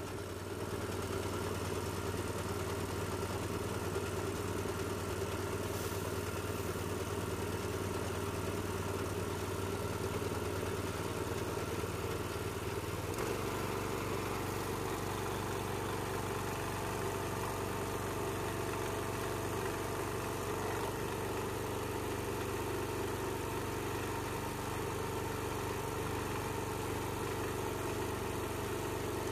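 Small petrol engine of a portable high-pressure washer running steadily while the lance sprays water onto an old locomotive boiler. The engine's tone shifts slightly about halfway through.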